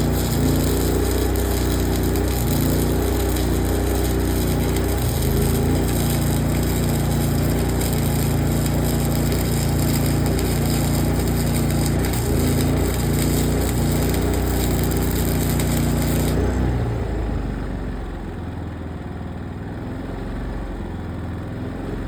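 Electric arc welding on steel plate: a steady crackling sizzle of the arc over a low machine hum. The arc stops abruptly about sixteen seconds in, leaving the lower hum running on its own.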